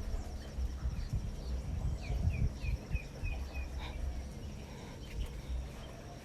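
A bird calls a quick run of about seven short, falling chirps about two seconds in, over a faint, steady, high insect trill, with scattered low thumps.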